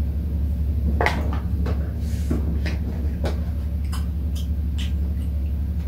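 Chopsticks clicking and tapping against bowls and a takeout tray of tteokbokki during a meal, a dozen or so scattered light clicks over a steady low hum.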